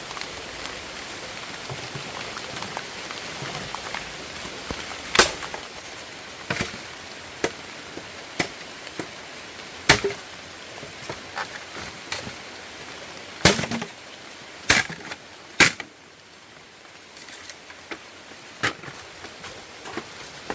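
Firewood being chopped with a blade: about ten sharp, irregular strikes spaced one to two seconds apart, over a steady hiss that fades about three-quarters of the way through.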